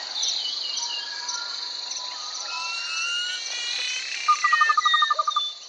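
Tropical forest ambience: a steady high-pitched insect chorus, with birds whistling short gliding notes. Near the end comes a rapid trill, about fifteen pulses a second.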